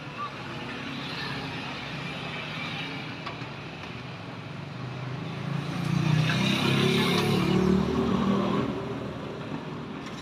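Street traffic noise, with a motor vehicle passing close by about six seconds in: its engine grows louder for two or three seconds and then fades.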